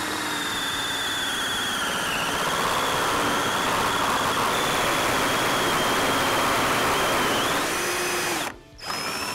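Hole saw in a tubing notcher, driven by a half-inch drill, cutting into steel tubing with a steady grinding and a high, wavering squeal. It stops abruptly about eight seconds in, then runs again briefly, as the cut bottoms out on the hole saw's full depth.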